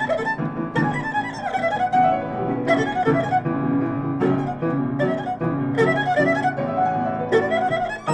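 Erhu and piano playing together: the erhu bows a busy melody with slides in pitch, over piano chords struck about once a second.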